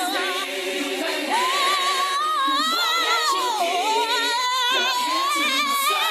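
A cappella gospel vocals with no instruments: a high lead voice holds long wordless notes with wide vibrato, sliding down and back up, over a choir sustaining harmonies beneath.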